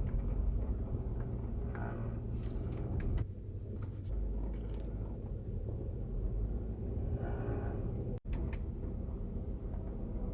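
Land Rover LR4 cabin with a steady low rumble, and twice a brief buzzing vibration, about two seconds in and again near seven seconds. This occasional vibration seems to come from the passenger footwell, though the owner thinks it may come from behind the firewall or somewhere in the engine bay.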